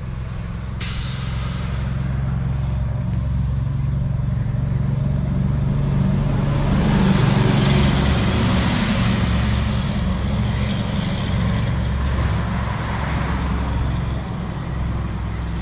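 Heavy cargo truck's diesel engine rumbling as it drives past close by, growing louder to a peak about halfway through with a rush of tyre and air noise, then easing off.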